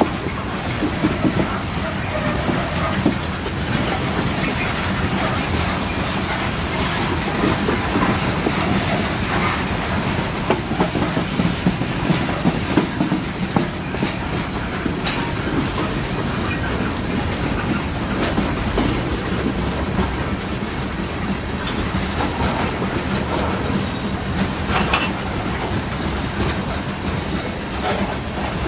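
Freight cars of a Norfolk Southern train rolling past close by. The wheels click and knock over the rail joints under a steady rumble, with no locomotive in the mix.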